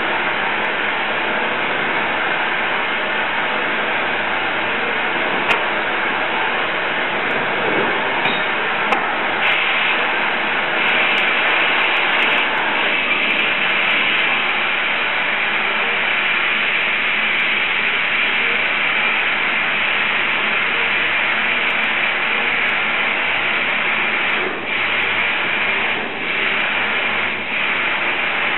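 Glassblower's bench burner flame running with a steady hiss, dipping briefly three times near the end.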